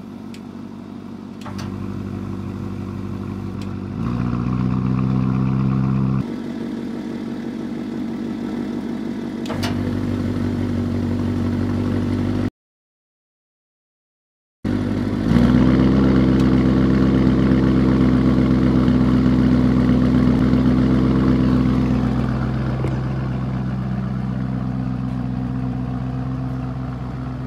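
Lamborghini Urus S twin-turbo 4.0-litre V8 heard at the exhaust. It runs at several steady engine speeds that step up and down in separate segments. About halfway there is a break of silence, then a sudden, louder steady run that eases off over the last few seconds.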